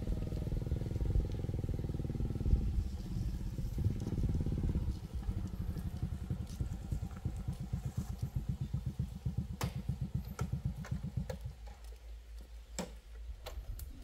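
Small motorbike engine running with a steady putter, louder for the first few seconds, then shutting off about eleven seconds in. A few sharp clicks follow.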